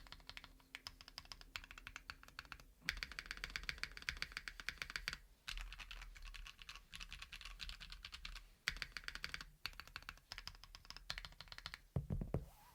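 Fast typing on a Mekanisk Klippe T mechanical keyboard with lubed KNC Keys Green Jacket linear switches, a polycarbonate O-ring-mounted plate and GMK keycaps: a dense run of keystroke clacks, broken by several brief pauses.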